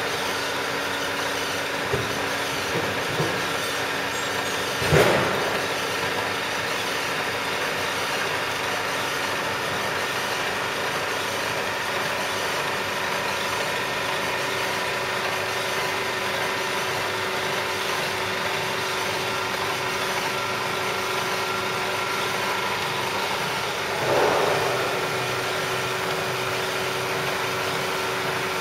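Large milling machine running under power: a steady mechanical hum with several steady tones. A few light clicks come about two to three seconds in, a loud clunk about five seconds in, and another knock near 24 seconds.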